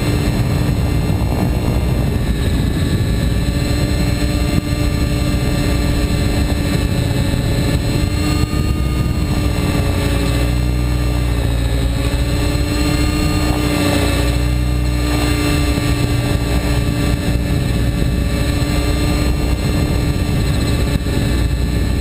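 Compass 7HV electric RC helicopter in flight, heard from a camera mounted on its frame: the steady whine of the motor and drive gears over the drone of the rotor blades. The pitch dips and recovers slightly a few times as the helicopter is thrown through manoeuvres.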